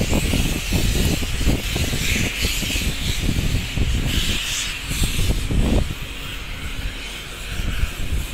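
Footsteps on a steel grating catwalk: a run of irregular thuds that stops about six seconds in, over a steady hiss.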